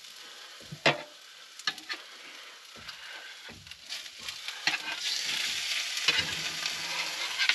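Cubed raw pork shoulder going into a hot cast-iron skillet of onions and sizzling, the sizzle growing louder about five seconds in as more meat lands in the pan. Several sharp clicks and knocks of the spatula and board against the skillet.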